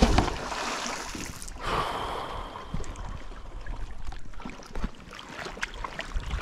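A magnet-fishing magnet thrown out on its rope and splashing into the water, then water trickling and scattered small clicks as the rope is handled.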